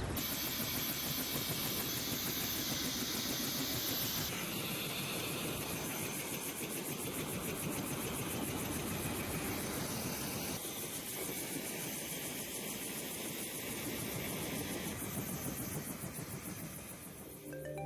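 A large engine running steadily with a strong hiss and a faint fast ticking in the highs, changing in character abruptly about four and eleven seconds in.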